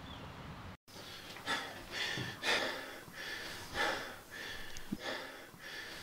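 A person breathing in heavy, ragged gasps, roughly two breaths a second, starting about a second in.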